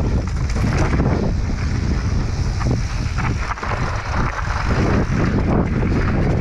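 Wind rushing over a mountain biker's action-camera microphone on a fast dirt-trail descent, over a steady rumble and rattle from the tyres and bike on the loose surface, with a few sharper knocks from the trail about halfway through.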